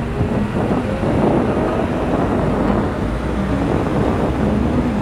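A column of diesel farm tractors driving past close by, engines running steadily with tyre rumble on the road.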